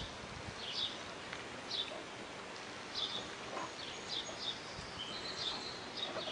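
Small birds chirping: short, high chirps repeated several times a second, over a steady outdoor hiss.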